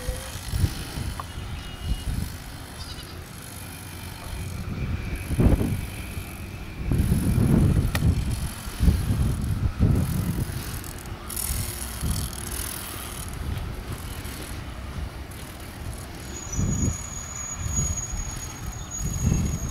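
Wind buffeting the microphone: uneven low rumbling gusts that swell and fade, strongest in the middle.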